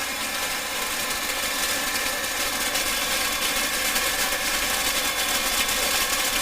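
Hair dryer blowing through a plastic bag open at both ends, the bag flapping rapidly ('bata-bata') over the dryer's steady whir. The flapping is driven by the dryer's air stream moving the bag.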